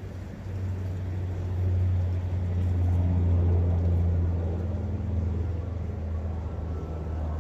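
Low, steady engine drone of a passing motor that swells over the first couple of seconds and then slowly fades, over a background hiss of wind and running brook water.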